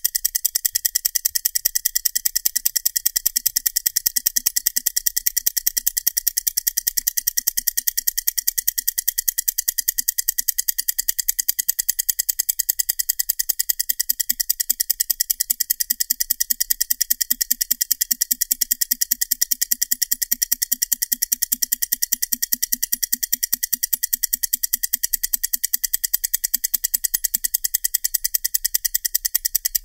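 Vintage Heuer-Leonidas Trackmaster 8042 and 8047 mechanical stopwatches running, giving a rapid, even ticking.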